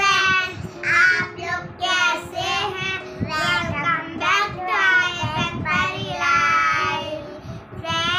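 Young girls singing a song together in high child voices, with some long held notes.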